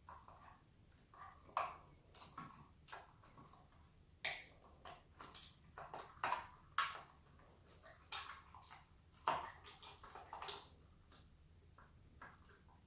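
Scattered clicks, taps and short scrapes of hand tools, screws and metal and plastic parts being handled while the electric scooter's main board is unscrewed and taken out. A few sharper knocks stand out among the lighter clicks.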